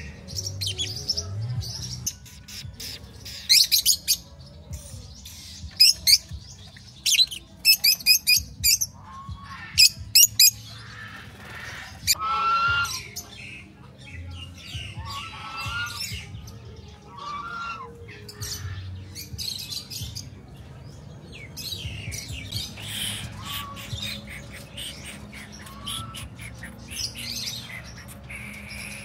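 Parrots and other birds calling: a run of loud, harsh squawks in the first ten seconds or so, then shorter looping whistles and chirps.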